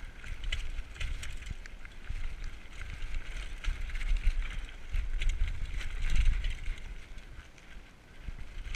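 Diamondback Recoil 29er mountain bike running down a rocky gravel singletrack: tyres crunching over stones, with many small rattles and clicks from the chain and frame. Wind rumbles on the camera microphone throughout.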